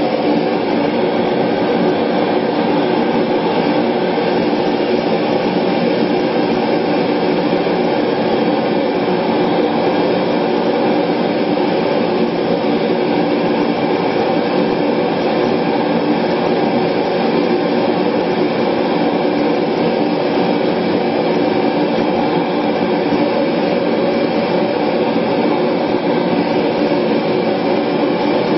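Propane gas forge running at full flame, a loud, steady roar, while a clay-coated blade is heated in its mouth for the quench.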